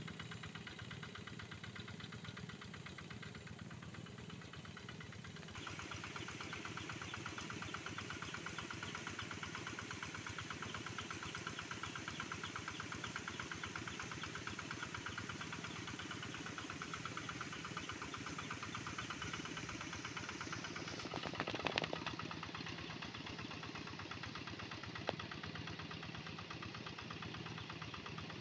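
Kubota hand tractor's single-cylinder diesel engine running steadily under load while plowing a rice paddy, with a rapid even knock. It gets louder about a fifth of the way in, and there is a brief louder burst of noise about three-quarters through.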